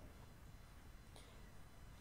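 Near silence: room tone with a faint low hum and one faint click a little after a second in.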